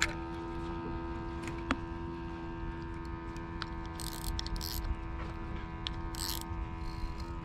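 A steady hum with several held tones throughout, and three short high rasps around the middle and near the end as the spinning reel's drag knob is adjusted by hand.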